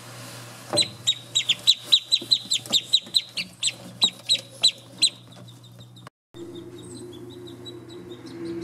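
Australian shelduck ducklings peeping: a rapid run of loud, high, downward-sliding peeps, about four or five a second, starting about a second in and stopping after about four seconds. Fainter peeps follow over a steady low hum.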